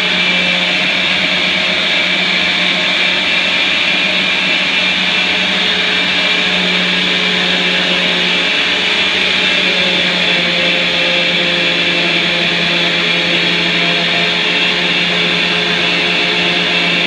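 Orbital sander running steadily with a constant hum, its 40-grit paper rubbing on painted wooden wall boards.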